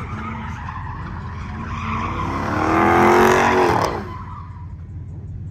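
A car spinning donuts, its engine revving and tyres skidding. The engine pitch rises to a peak about three seconds in, then cuts back suddenly just before four seconds, over a steady low rumble.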